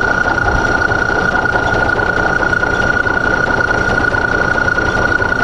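Drill press motor running with a steady high whine while its bit drills a clearance hole through a small 16-gauge sheet-metal bracket held in a drill press vise.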